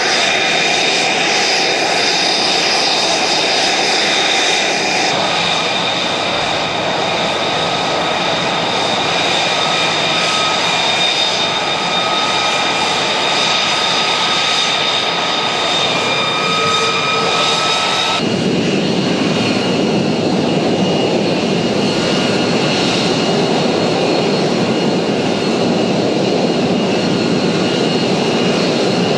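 F-35 Lightning II jet's F135 turbofan engine running steadily: a continuous rushing noise with several steady high-pitched turbine whine tones. About eighteen seconds in the sound changes abruptly to a fuller, lower rush with a different set of whine tones.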